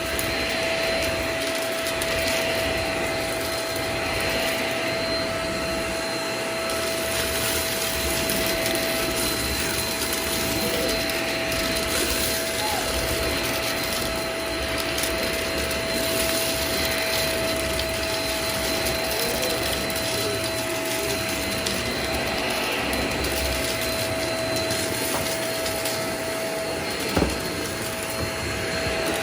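Vacuum cleaner running steadily with a constant whine, sucking up spilled potato chips, which crackle in the intake. A single sharp knock comes near the end.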